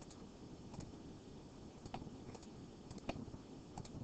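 Several faint, irregular computer mouse clicks as keys are clicked one by one on an on-screen graphing-calculator emulator, over a low room hum.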